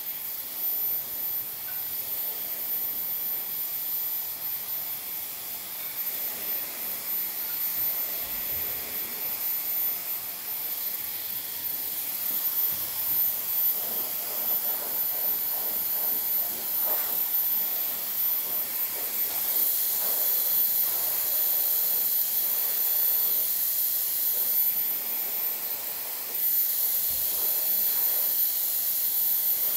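Handheld hair dryer blowing on short hair: a steady hissing rush of air. It grows louder about two-thirds of the way through and again near the end.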